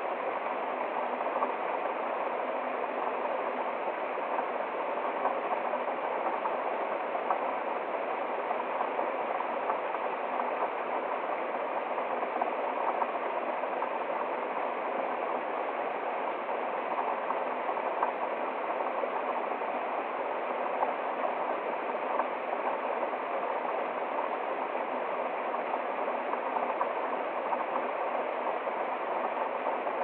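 Small woodland waterfall and shallow stream splashing over rocks: a steady, even rush of running water.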